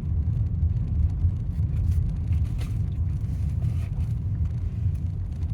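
Steady low rumble of a vehicle being driven, heard from inside the cabin, with a few faint ticks.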